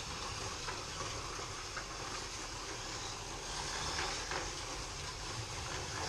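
Several FLY slot cars running on a Scalextric track: the steady whir of their small electric motors and the rattle of wheels and guide braids over the plastic track, with a few faint clicks.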